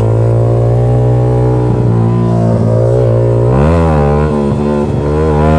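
Yamaha R15 V3's 155 cc single-cylinder engine running through a loud SC Project aftermarket exhaust, holding steady revs while cruising. About three and a half seconds in the revs swing up and back down as the rider tries a wheelie at around 30 km/h, and they dip again near the end.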